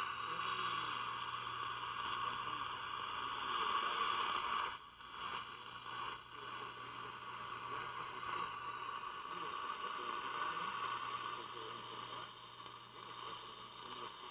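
A General Electric C-510a tube radio's speaker giving out a steady hiss of static with a low hum underneath while its IF transformers are being aligned. The hiss drops sharply about five seconds in and stays a little quieter after that.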